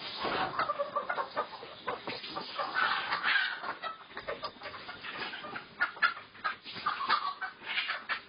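A large flock of layer hens clucking and squawking in irregular bursts while hens are caught and handled, with scattered clicks and knocks among the calls.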